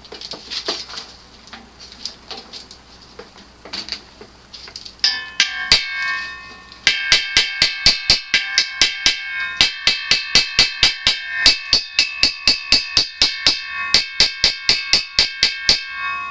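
Hammer striking steel: a few lighter taps and clinks, then from about seven seconds in a fast, even run of blows, about four or five a second, each one ringing.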